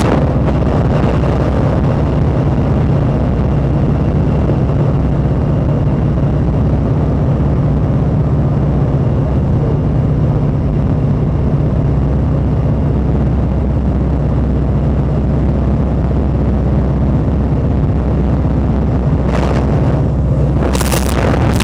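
Open-cockpit WACO biplane in flight: its engine drones steadily and loudly, with the rush of wind over the cockpit. The wind hiss stays muffled for most of it and comes back in two short surges near the end.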